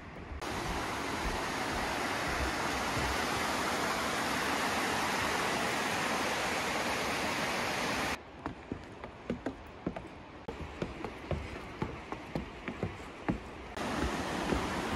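Waterfall rushing steadily, water sliding down a bare rock face. About eight seconds in the rushing drops away and footsteps knock on wooden stairs for several seconds, before the water sound returns near the end.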